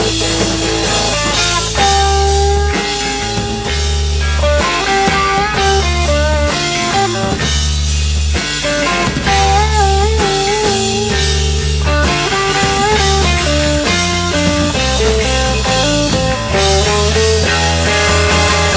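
Rock band playing live without vocals: a lead guitar holding long notes with vibrato over a pulsing bass line and drums.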